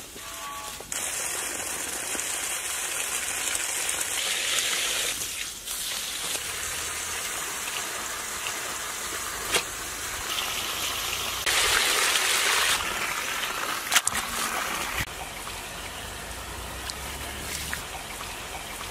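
Water gushing from a garden hose and splashing as raw chicken pieces are washed under it; a steady rush that changes in level several times and is loudest a little past the middle.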